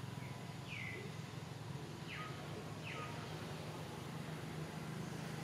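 Forest ambience with a bird giving three short whistled calls, each sliding down in pitch, about a second in, two seconds in and three seconds in, over a steady low hum.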